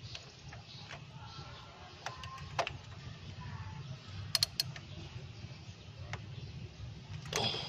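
A socket wrench on an extension bar tightening a nut on an ignition coil inside a distributor, giving a few sharp, scattered metallic clicks over a steady low hum.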